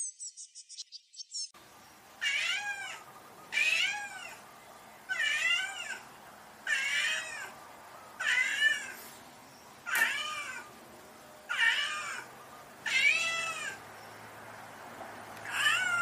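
A domestic cat meowing repeatedly: about nine meows roughly a second and a half apart, each rising then falling in pitch. They follow a second or so of rapid, high chirping at the start.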